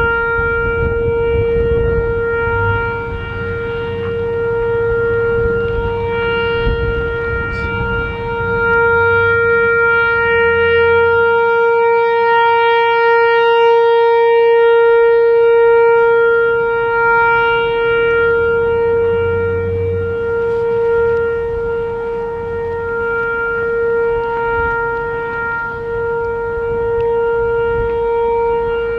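Whelen Vortex R4 electronic outdoor warning siren sounding its steady alert signal: one held pitch with overtones and no rise or fall in pitch, its loudness swelling and easing gently as the rotating siren turns.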